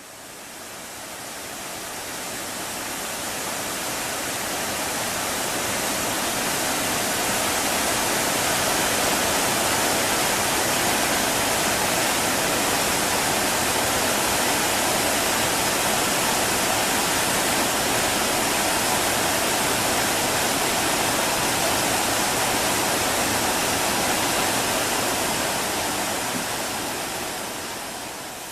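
A small six-step cascade waterfall rushing steadily. It fades in over the first few seconds and dips slightly near the end.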